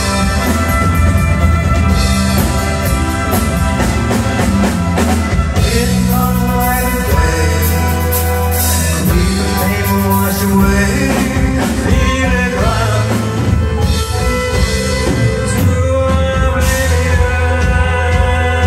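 Live rock band playing: drum kit, bass guitar, electric guitar and violin, with a man singing.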